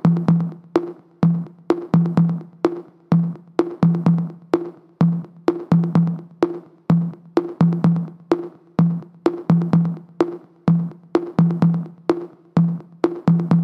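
Background music: the instrumental intro of a pop song, a drum-machine beat of about two hits a second over a low bass note, without singing.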